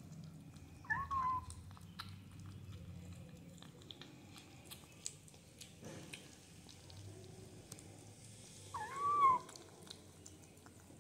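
Kittens eating wet food from a plastic tub, with faint, scattered clicks of chewing and lapping. A kitten meows twice, once about a second in and again near the end, each a short call that rises and falls; these meows are the loudest sounds.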